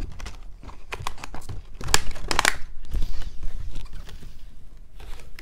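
Clear plastic mesh moss pole crinkling and clicking as it is handled and folded into shape, with a burst of sharp crackles about two seconds in and another near the end.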